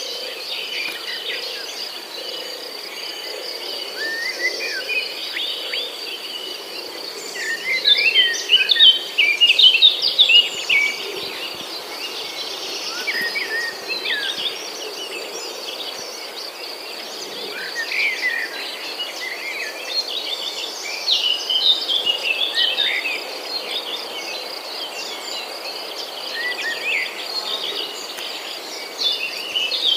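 Many small birds chirping and calling in short, overlapping notes, busiest in a couple of bursts, over a steady high-pitched trill of insects.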